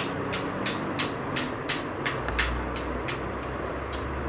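Steady room noise with a regular soft ticking, about three ticks a second, and a low hum that comes in about two seconds in.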